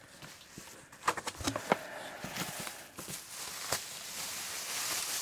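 Cardboard boxes being handled and unpacked: a few light knocks, then cardboard sliding and rubbing against cardboard.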